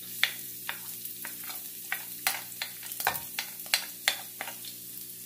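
Minced garlic sizzling in hot cooking oil in a wok, sautéing, with repeated sharp clicks and taps of a spoon against the plate and pan as the garlic is pushed in and stirred.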